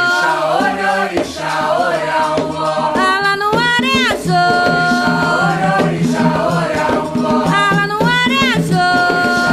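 A ponto for Xangô, an Afro-Brazilian devotional song, sung over shaker rattle and drum percussion. The melody swoops up and falls back about every four seconds, with held notes in between.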